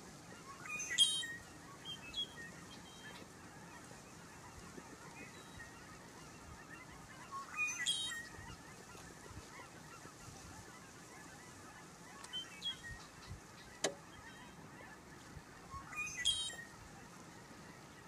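Male red-winged blackbird singing its conk-la-ree song three times, about eight seconds apart, each song rising into a buzzy trill. A few short call notes come between the songs, and there is a single sharp click a little before the last song.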